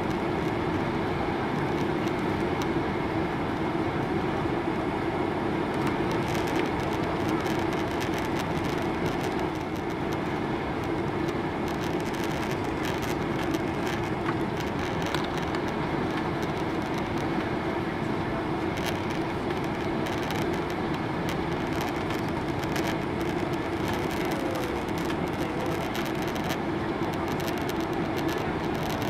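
Steady cabin noise of an airliner on final approach with flaps extended: an even rush of engine and airflow noise with a constant low hum.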